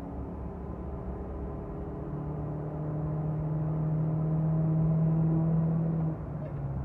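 Toyota ist's engine pulling under hard acceleration, growing steadily louder, then dropping off suddenly about six seconds in as the throttle is released.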